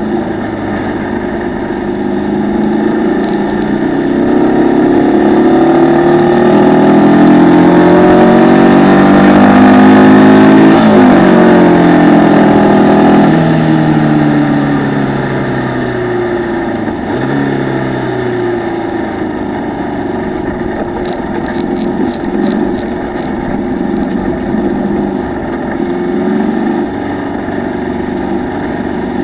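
Formula Vee racing car's air-cooled Volkswagen flat-four engine at race speed, heard onboard through a waterproof camera case: the revs climb for several seconds, then fall away about halfway through and settle. A steady rush of wind and road spray runs under it, with a short run of faint ticks near the end.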